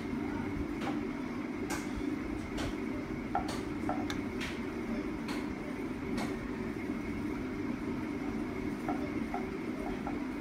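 A metal spoon clinking against steel bowls and plates as coconut filling is scooped, about half a dozen sharp clinks in the first six seconds and a few fainter ticks later, over a steady low hum.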